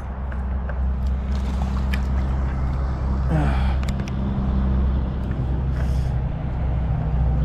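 Steady low drone of a running engine, with scattered light clicks and a brief voice-like sound about three and a half seconds in.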